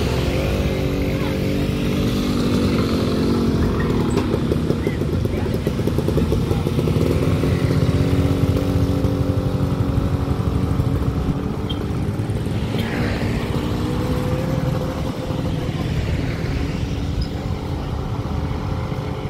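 Motorcycle engines running close by, as motor scooters idle and ride past on the road; the pitch of the nearest engine slowly rises and falls.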